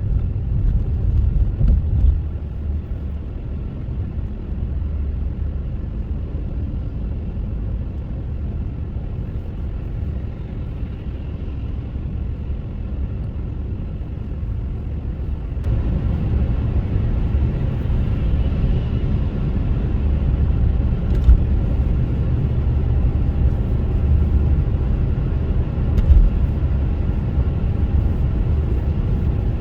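A car driving: a steady low rumble of engine and road noise that gets louder about halfway through, with a few short knocks, one near the start and two in the second half.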